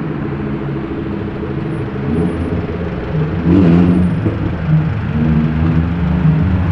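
Lamborghini Huracán Performante's 5.2-litre V10 running at low revs, with a short rise in revs about three and a half seconds in.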